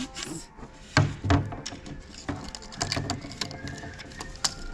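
Irregular light knocks and clicks, a sharp one about a second in, over a low background hum.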